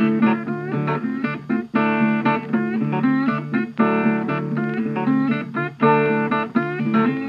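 Background music: a plucked acoustic guitar tune, with bent notes that slide in pitch.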